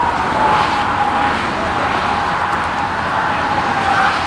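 Steady noise of highway traffic passing, with a thin whine that slowly falls in pitch.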